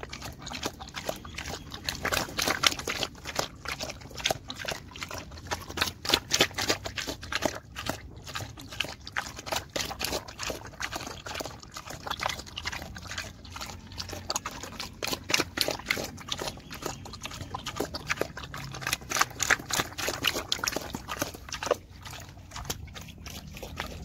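A pig eating a wet mash of chopped green leaves from a metal bowl: a quick, irregular run of wet smacks and slurps as it chews and laps.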